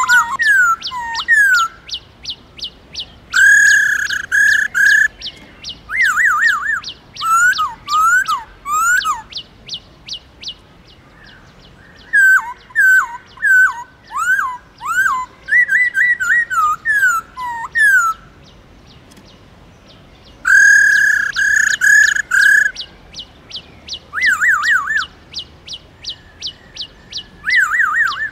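Black-throated laughingthrush singing loud whistled phrases of slurred rising and falling notes and quick trills, in bursts with short pauses. Behind the song runs a fast, even series of thin, high ticking notes.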